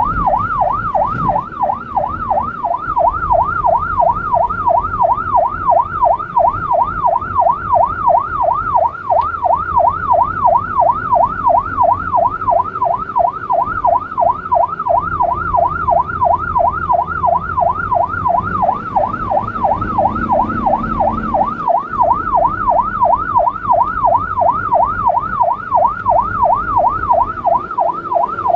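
Emergency vehicle siren on a rapid yelp, its pitch sweeping quickly up and down without a break, heard from inside the cab of a Red Cross vehicle. Engine and road noise run underneath.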